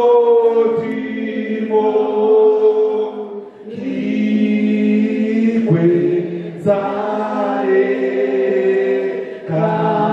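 Several voices singing a song in long, held notes, with short breaks between phrases.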